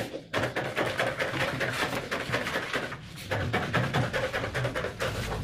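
Scissors cutting out a paper pattern piece: a rapid run of snips and paper rustling, with light handling knocks.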